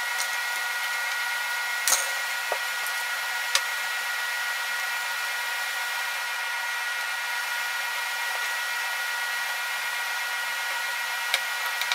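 Steady hiss, like a fan or blower running, with faint steady tones in it and a few light clicks.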